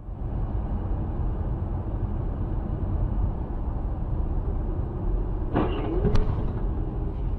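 Steady low road and engine rumble of a moving car, picked up by a dashcam inside the cabin. About five and a half seconds in, a short rising sound, then a sharp click.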